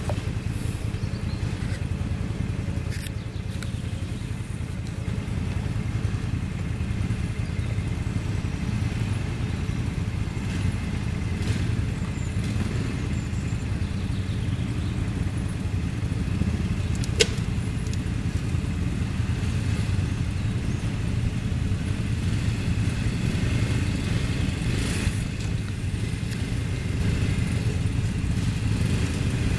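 Off-road vehicle engine running steadily, likely a quad or 4x4 crawling over terrain, with one sharp knock a little past halfway.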